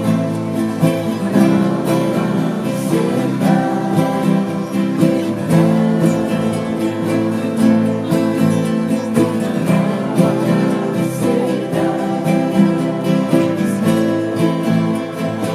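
Acoustic guitar strummed in a steady rhythm as a band plays through a song at rehearsal, with voices singing along.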